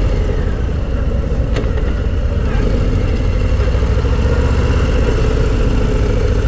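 Harley-Davidson Low Rider ST's Milwaukee-Eight 117 V-twin running steadily while riding, through its stock exhaust, which gives it a tame sewing-machine sound, with wind rushing over the microphone.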